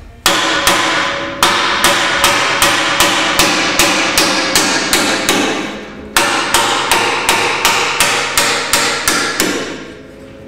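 Hammer blows on a bent sheet-metal exhaust heat shield of a Yamaha Viking side-by-side, tapping it back into shape: about three blows a second, the metal ringing after each, with a short pause about six seconds in and lighter blows near the end.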